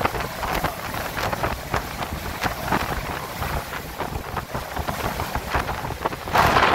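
Hurricane Ian's gusting wind buffeting a sailboat's cockpit enclosure and rumbling on the microphone, with rain and spray spattering irregularly on the clear panels. A louder spatter of water comes about six seconds in.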